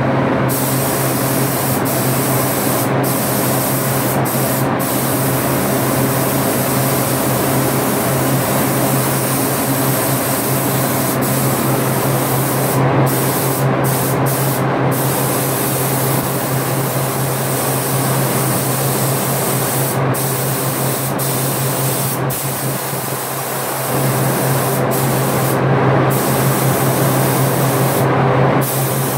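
Compressed-air gravity-feed paint spray gun hissing steadily while spraying paint, with a steady low hum underneath. The top of the hiss drops out for a moment now and then as the spray is interrupted.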